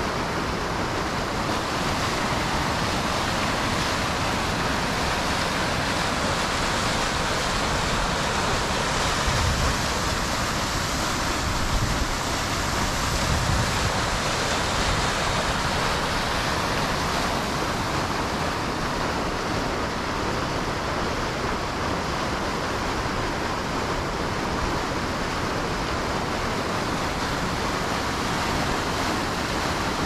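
River rapids rushing steadily through an open channel between ice and snow, a constant wash of water noise; strong current at the drop keeps this stretch from freezing.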